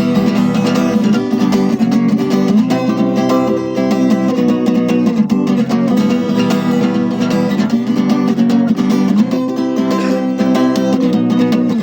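Acoustic guitar strummed in a steady rhythm, chords ringing with no singing over them.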